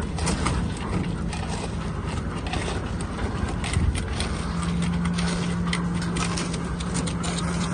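Construction machinery at a concrete slab pour: an engine running steadily, with irregular metallic clattering and clanking over it.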